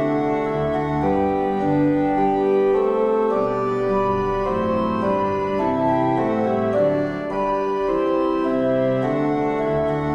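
Organ music: sustained chords whose notes change every second or so.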